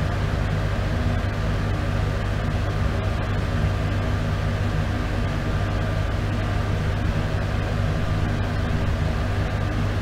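Bathroom exhaust fan running steadily: a constant low motor hum under an even rush of air.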